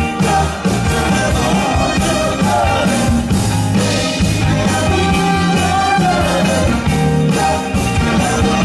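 Soul band playing Motown-style music with a steady beat, a bass line and a singer's voice over it.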